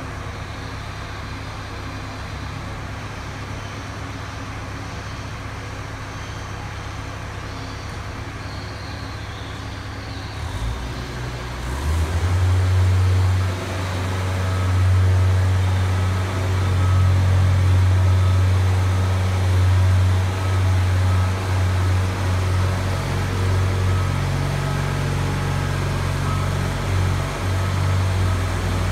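Articulating boom lift running: a steady low mechanical hum that grows much louder about twelve seconds in as the boom is worked and then rises and falls.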